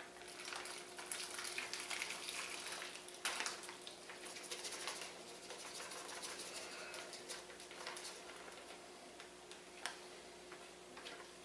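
Marinade pouring from a glass jug into a plastic bag of cut meat, a soft liquid splashing that is strongest in the first few seconds and tapers as the jug is held upside down to drain. A couple of sharp knocks from the jug against the bag, one about three seconds in and one near the end.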